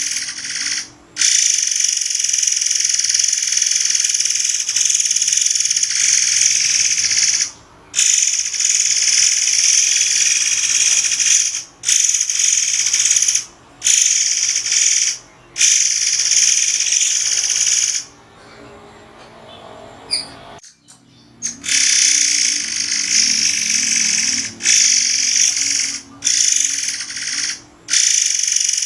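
Murai air songbird singing a shrill, high-pitched continuous song in long stretches, each cut off by a brief gap, with a quieter pause of about three seconds roughly two-thirds of the way through.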